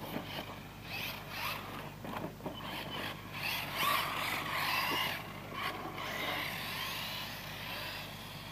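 Traxxas 1/16 Slash VXL RC truck's brushless electric motor whining, its pitch rising and falling as the throttle is worked, loudest about four seconds in as the truck passes close by, with tyre noise on dirt and pavement.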